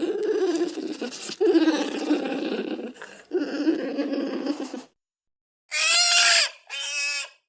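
Bear cub calls: three rough, low, pulsing calls, then after a short pause two short, high, squealing cries, the second fainter.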